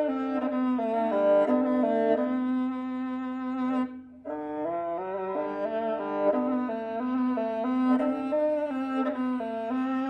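Kobyz, the Kazakh bowed horsehair fiddle, played solo: a bowed melody over a steady low drone, with a brief break about four seconds in.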